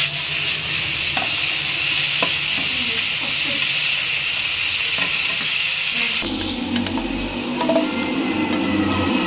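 Shredded cabbage, carrot and spring onion sizzling in a hot frying pan as a spatula stirs them, with light clicks of the spatula on the pan. About six seconds in the sizzle drops away, giving way to spatula clinks and scrapes as the vegetables are lifted out onto a plate.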